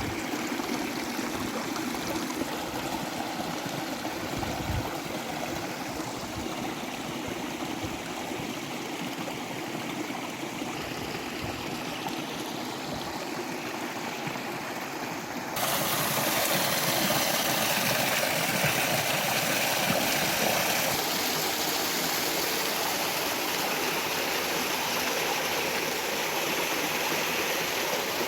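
Small mountain stream rushing over rocks: a steady wash of water that turns abruptly louder and brighter a little over halfway through.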